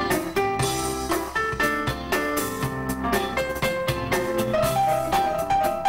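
Live band playing an instrumental passage: a drum kit keeps a steady beat under a stepping melodic lead line and keyboard.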